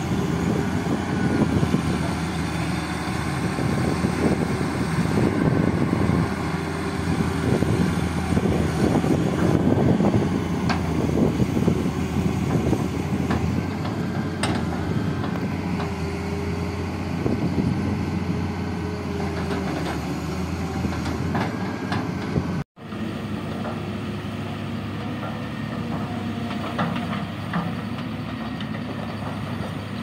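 Hydraulic excavator's diesel engine running under load while it digs, with irregular clattering and scraping of the bucket in sandy soil. After a brief dropout about three-quarters of the way through, a steadier, quieter engine hum of machines working further off.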